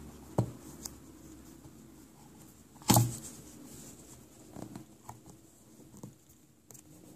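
Hands handling a Western Digital IDE hard drive: scattered taps and small knocks on its metal case, the loudest a sharp knock about three seconds in.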